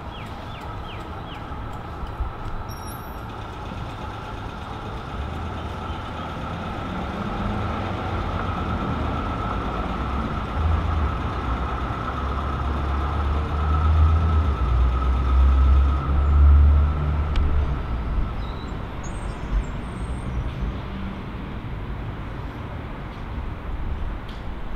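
Street traffic with B2-class trams running: a steady hum with a held mid-pitched whine, and a low rumble that swells to its loudest in the middle as a heavy vehicle rolls close, then fades.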